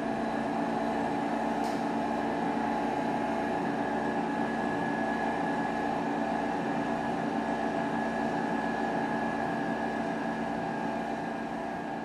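Air compressor running steadily: a constant motor and pump hum with a fast low throb underneath.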